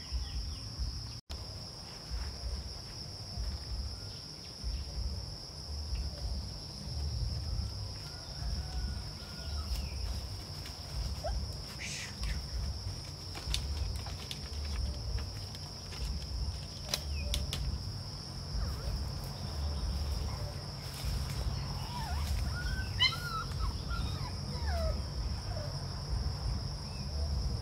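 Steady high-pitched drone of insects in the forest, over a low uneven rumble, with a few short chirps near the end.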